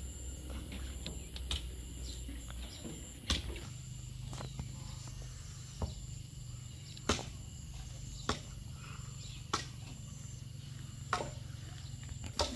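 Sharp clicks or taps, about one every second or so from about three seconds in, over a steady high insect drone and a low hum.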